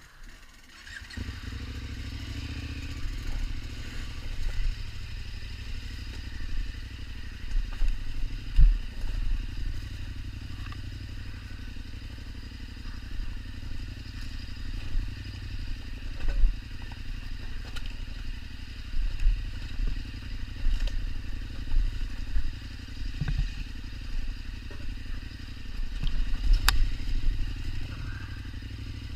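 2016 KTM 1290 Super Adventure's V-twin engine coming in about a second in, then running steadily at a low, even note, with scattered knocks and clatter.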